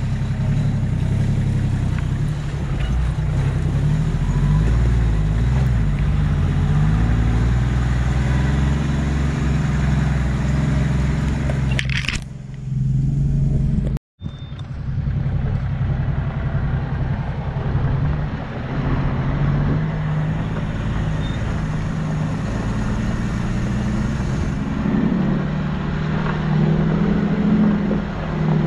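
Off-road 4x4 vehicle driving with its engine running steadily, the engine note rising and falling as the throttle changes. The sound drops out for an instant about fourteen seconds in.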